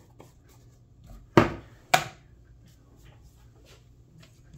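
Two sharp knocks about half a second apart, hard parts being handled and set against the workbench, with faint handling noise around them.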